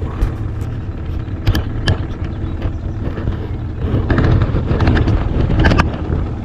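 Boat motor running steadily as the fishing boat travels upriver, with a few short sharp knocks over it.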